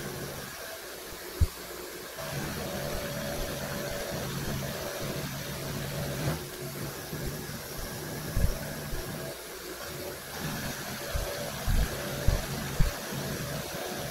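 PM-727M milling machine running, its spindle turning an end mill through a conventional-milling pass along the wall of a groove, a steady mechanical hum. A few short low thumps stand out above it, the loudest about 8 seconds in and three close together near the end.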